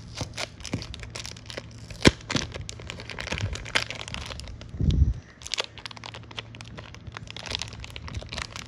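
Clear plastic bag crinkling and crackling as it is worked off a stack of trading cards. There is one sharp click about two seconds in and a short dull thump about five seconds in.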